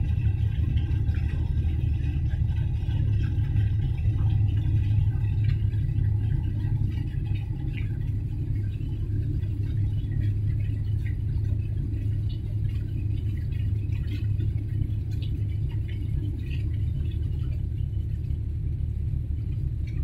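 Steady low rumble of the container ship Wan Hai 302's engine as the ship passes close by, easing slightly over the stretch, with faint scattered ticks above it.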